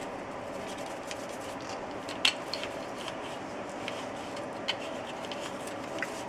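Toothbrush scrubbing the slide of a Glock 22 pistol with bore solvent: a steady bristly rubbing made of many fine ticks, with two sharper clicks about two and four and a half seconds in.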